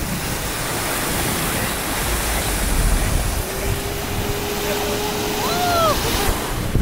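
Surf breaking and washing onto a sandy beach, heard as a steady rushing noise, with wind on the microphone.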